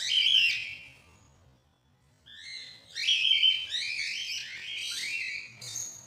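Cockatiel nestlings calling from the nest box: one loud call right at the start, then after a pause a quick run of five or six repeated begging calls.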